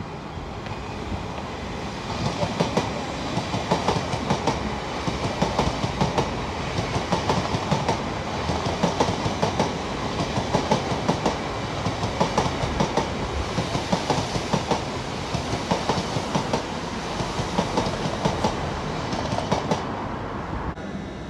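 A Great Western Railway Hitachi Intercity Express Train passing, its wheels clattering over the rail joints in dense, rapid clicks. The noise drops away near the end as the last coach goes by.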